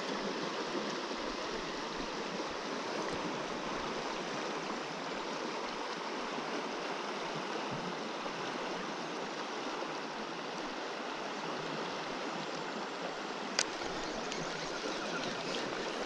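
Shallow river current running over gravel and stones, a steady rushing of water close by. One sharp click sounds near the end.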